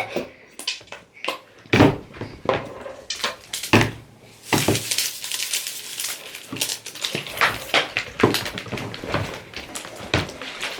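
Spatulas knocking and scraping against plastic bowls as slime ingredients are mixed: a few separate knocks at first, then continuous scraping and stirring from about four and a half seconds in.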